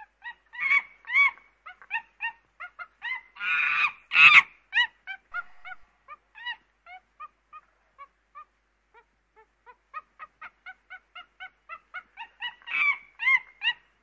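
Chimpanzee calling: a fast run of short rising-and-falling calls that twice builds into loud screaming, once about four seconds in and again near the end.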